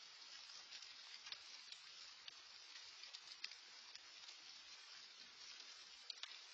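Faint steady patter of light rain, with scattered sharp ticks from drops landing close by.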